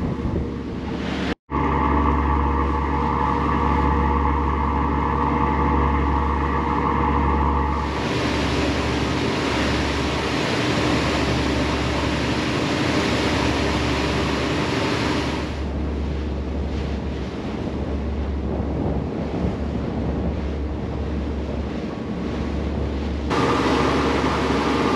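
Boat under way: a steady engine drone with wind and water rushing past. For several seconds in the middle a broad rushing hiss of wind and spray is loudest, then the engine drone comes back.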